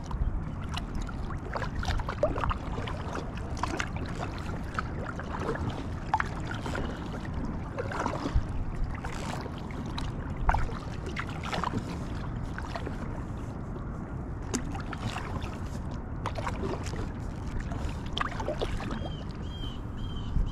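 Water splashing and dripping irregularly around a small inflatable kayak, over a steady low rumble of wind on the microphone. A run of short high chirps comes near the end.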